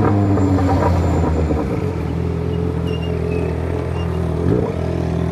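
Yamaha XJ6 inline-four motorcycle engine heard from the rider's seat, dropping in pitch as the bike slows, then idling steadily at a stop, with a brief change in pitch about four and a half seconds in.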